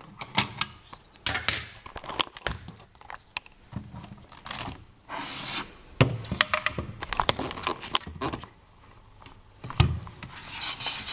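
Plastic Lego bricks of a home-built candy machine being handled and taken apart by hand: a string of sharp clicks and knocks with scraping and rubbing between, the loudest knocks about six seconds in and again near the end.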